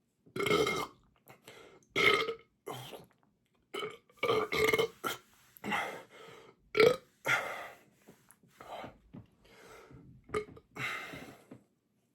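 A man belching over and over, about a dozen belches in quick succession, some short and some drawn out. The sharpest and loudest comes about seven seconds in. The gas comes from soda gulped down fast on a stomach full of food.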